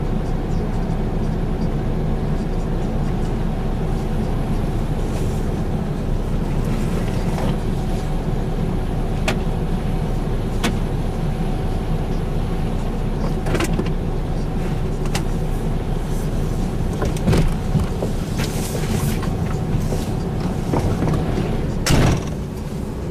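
New Holland tracked excavator's diesel engine running steadily as it digs soil, with a few short knocks from the bucket and boom working.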